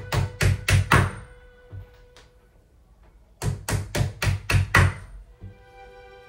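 Hammer tapping small nails into the fibreboard back panel of an IKEA cabinet: two quick runs of sharp strikes, about three to four a second, four near the start and six more after a pause of about two seconds. Quiet background music with held tones plays under it.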